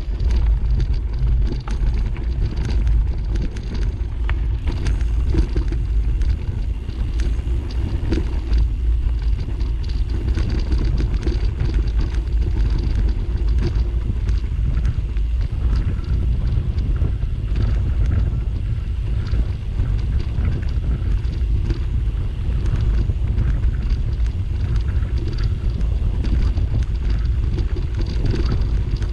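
Wind buffeting the camera microphone in a steady low rumble, over a constant fine crackle from travel along a dry dirt track.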